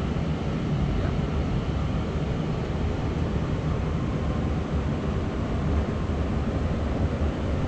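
Steady low rumbling noise with no distinct events, even throughout.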